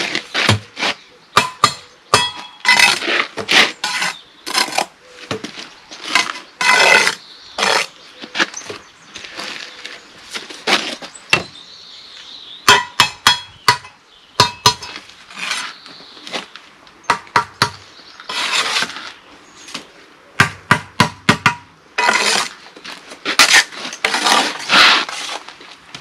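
A bricklayer's steel trowel working mortar and concrete blocks: irregular sharp knocks and clinks, some ringing briefly, between short scrapes.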